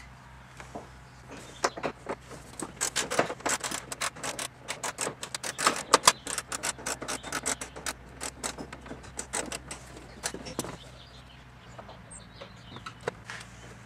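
Socket ratchet clicking rapidly in uneven runs of strokes as a bolt is backed out. The clicking thins out near the end.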